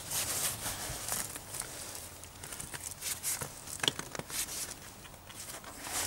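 Rear tyre of a Volt Pulse e-bike being worked back onto the rim by hand: irregular scuffing and rustling of rubber against the rim, with a few sharp clicks about four seconds in.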